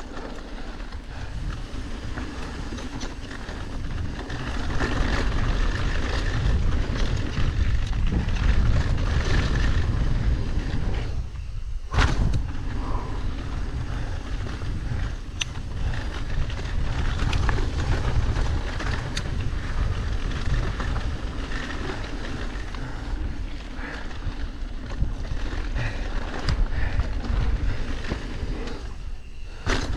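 Mountain bike rolling fast down a dry dirt trail: tyres on dirt and wind rushing over the camera microphone, with scattered rattles and knocks from the bike. Twice the rolling noise drops away for about half a second and then comes back with a sharp knock, as the bike leaves the ground over a jump and lands.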